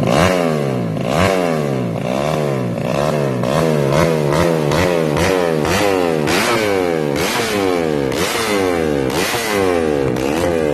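Race-tuned Yamaha Jupiter Z grasstrack motorcycle's single-cylinder four-stroke engine being revved repeatedly, the pitch rising and falling about once a second as the throttle is blipped.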